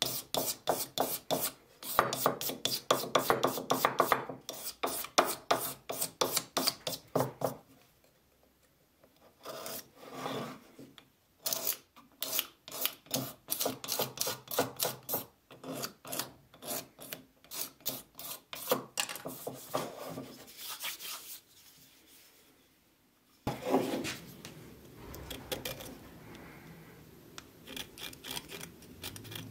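A small metal scraper blade rasping quickly over the wooden body of a century-old wooden hand plane, several strokes a second, stripping the old finish. The strokes come in two long runs, each broken by a short pause. About three-quarters of the way in, a softer, more even scraping starts suddenly and fades away.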